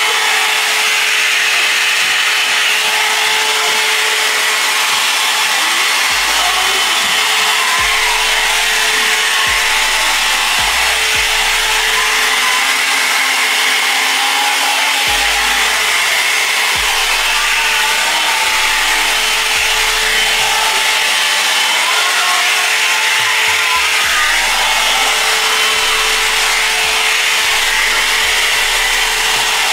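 Comb-attachment hair blow dryer running steadily, its motor giving a constant hum under the rush of air.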